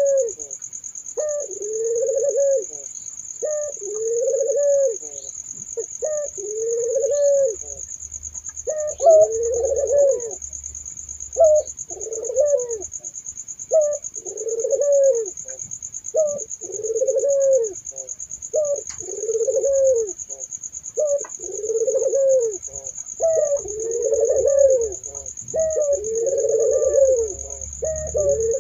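Puter doves (ringneck doves) cooing over and over, one rounded, arching coo roughly every second and a quarter, with calls sometimes overlapping. A steady high-pitched whine sounds behind them.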